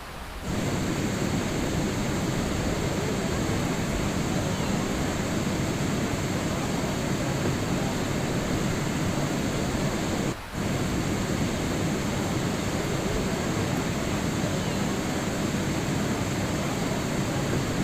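Steady rain sound used as sleep noise: a dense, even hiss with no distinct drops or tones. It gets louder about half a second in and dips out for a moment about ten seconds in.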